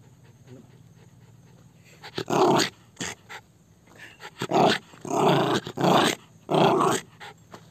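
Indian Spitz dog barking repeatedly, a run of loud barks in quick groups starting about two seconds in.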